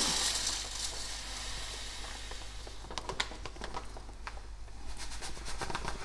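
Dishwasher salt poured from a plastic bag through a funnel into the dishwasher's salt reservoir: a hiss of granules that fades in the first second or so, then scattered light ticks.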